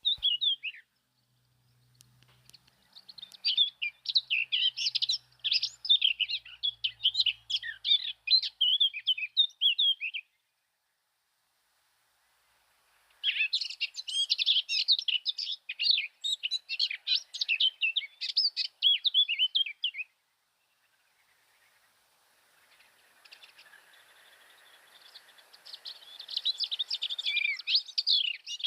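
Blue tit twittering: dense runs of rapid, high chirps in three stretches of several seconds each, with silent pauses between them.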